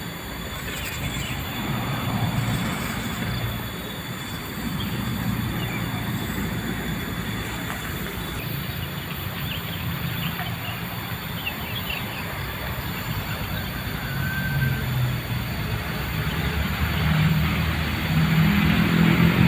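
Steady low engine rumble, like traffic or trucks running nearby, swelling louder near the end.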